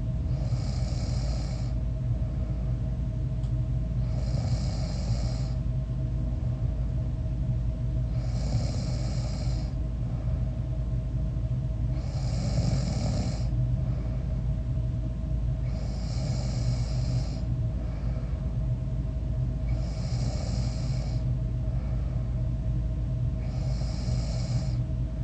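A person snoring in sleep, a breath about every four seconds, each lasting a little over a second, over a steady low hum.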